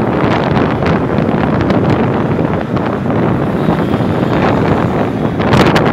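Loud wind noise buffeting the microphone of a camera moving along a road in traffic, with a sharper burst near the end.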